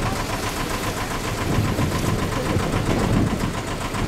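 Boat engine idling steadily, with a fast, even pulse.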